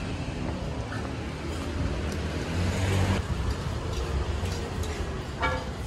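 Steady low rumble of a running vehicle engine amid road traffic, with a short faint clatter about five seconds in.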